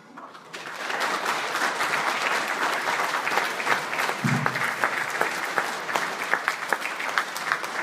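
Audience applauding, the clapping swelling over the first second or so and then holding steady, with many individual sharp claps standing out.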